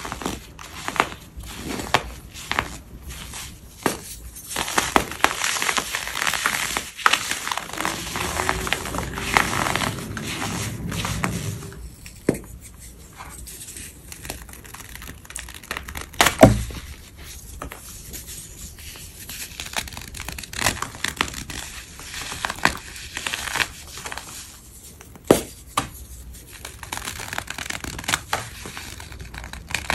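Crisp, chalky powder blocks crushed and crumbled close to the microphone. Dense crackling crunches run for about the first twelve seconds, then sparser crunches follow with a few sharp snaps, the loudest about halfway through.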